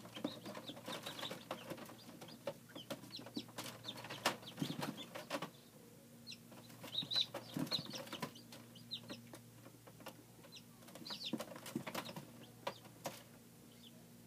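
Newly hatched chicks peeping in short high cheeps inside an egg incubator, mixed with scattered sharp clicks and taps, busiest in the first half. A low steady hum runs underneath.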